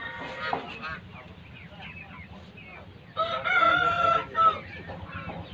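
Aseel rooster crowing once, about three seconds in, a single held call lasting about a second and a half. Other chickens keep up short chirping and clucking calls around it.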